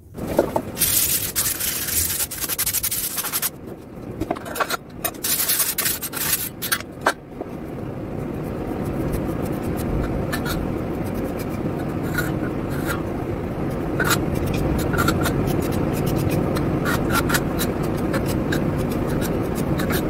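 Metal putty knife scraping loose paint and plaster off a damaged wall in rough, uneven strokes, two spells over the first seven seconds. After that a steadier low rushing noise with scattered light clicks.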